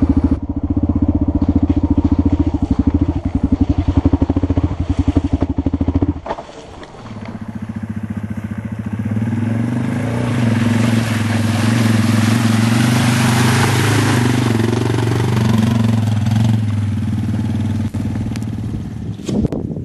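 Dual-sport motorcycle engines idling with a steady pulsing beat. After a cut, a dirt bike rides through a flooded stretch of trail, its engine running under load as water splashes up around it.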